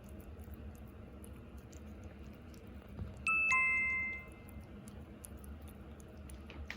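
A two-note chime, a higher note followed a quarter second later by a lower one, ringing out and fading within about a second, over faint background sounds.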